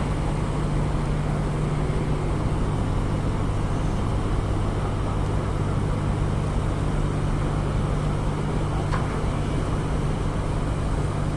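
A boat engine running steadily: a constant low drone over an even rushing noise, with a faint click about nine seconds in.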